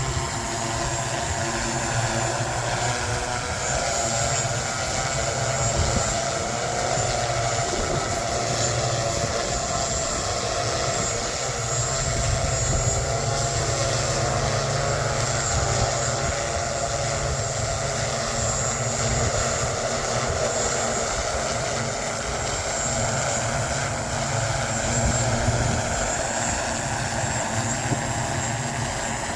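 Propellers of the BBA QC1 VTOL aircraft running steadily in flight, their pitch wavering slightly, with wind buffeting the microphone.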